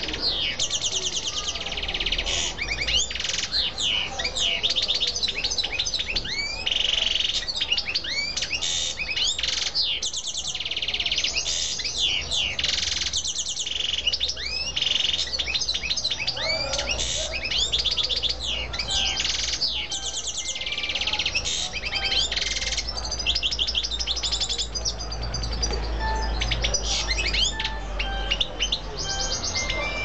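Caged canary and European goldfinch singing: a fast, almost unbroken run of high trills, rapid repeated notes and sweeping whistles.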